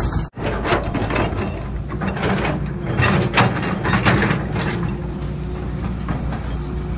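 Excavator running with its diesel engine humming steadily, while metal parts clank and scrape repeatedly, most in the first few seconds.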